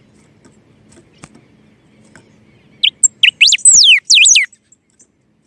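A bird singing close up: about three seconds in comes a loud burst of quick whistled notes, each sweeping up and down in pitch, with one long falling whistle, lasting under two seconds. A faint low hum sits beneath.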